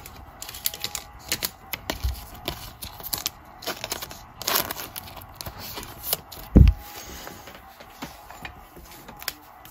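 Crinkling and rustling of a thin clear plastic card sleeve as a trading card is slid into it and handled, with scattered small clicks. About two-thirds of the way through there is one brief low thump, the loudest sound.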